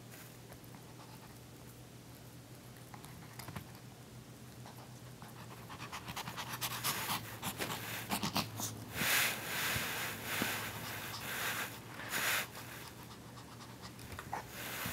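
Pomeranian panting in quick breaths, starting about six seconds in after a quiet start, over a low steady hum.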